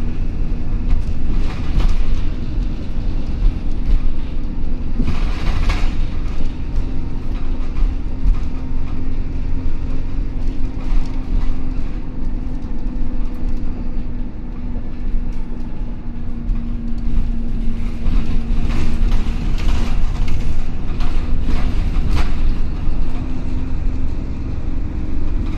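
Inside a moving Alexander Dennis Enviro400 double-decker bus on a Dennis Trident chassis: the diesel engine and transmission running with a steady drone under a low road rumble, with short rattles from the cabin. The drone eases a little in the middle and grows louder again in the second half.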